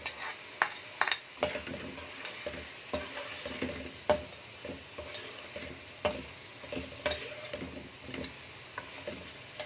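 A large metal spoon scraping and knocking around a metal pan while stirring chicken and ground spices frying in oil, over a steady sizzle. The sharpest knocks come about half a second, one second and four seconds in.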